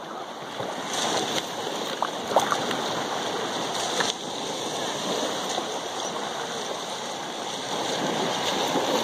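Shallow seawater lapping and washing steadily in small ripples, with a few brief small splashes.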